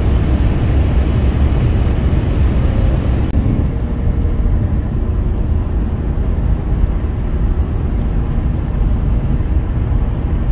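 Steady drone of a car cruising at motorway speed, heard from inside: low road and engine noise with no clear rise or fall in revs. A little over three seconds in, the higher hiss drops away and the low drone carries on.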